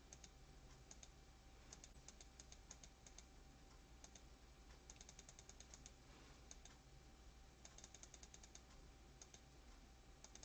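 Faint, quick runs of computer mouse clicks, five to seven in under a second, as an add button is clicked repeatedly, over a low steady room hum.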